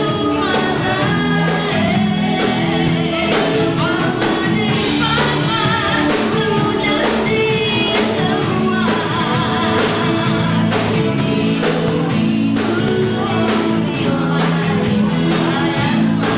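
Live band music with a steady beat: a woman sings lead into a microphone over drums and electric guitar.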